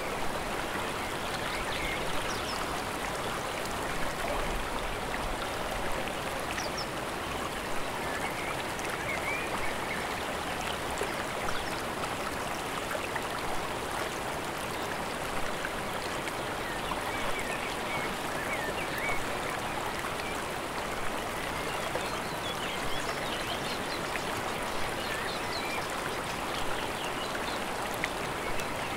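Steady rush of running water from a mountain stream and waterfall, with faint short bird chirps scattered through it.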